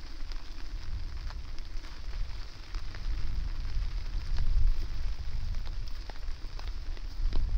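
Rain falling, with many scattered drops ticking sharply. Wind buffets the microphone as a low rumble, gusting stronger from about three seconds in.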